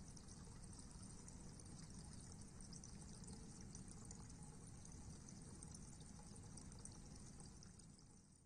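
Near silence: faint, steady outdoor background hiss with a low rumble, fading out near the end.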